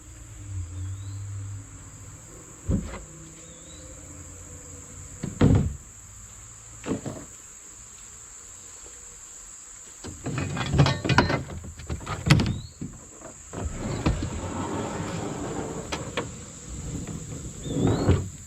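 Insects buzzing in one steady high tone, with scattered knocks and thumps; the knocks come thickest around the middle.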